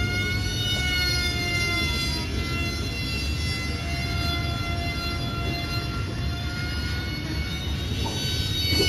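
Electric motor and propeller of a foam RC plane whining at a steady high pitch that drifts slightly and shifts near the end, over a low steady rumble.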